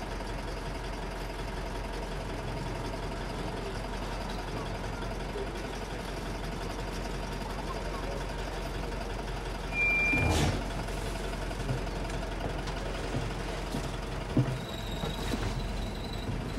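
A bus engine running steadily, heard from inside the cabin. About ten seconds in comes a short, louder rush of noise, and a few knocks follow.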